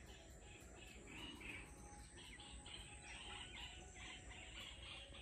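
Faint outdoor ambience of birds chirping, short calls repeated about three times a second, over a steady high insect drone.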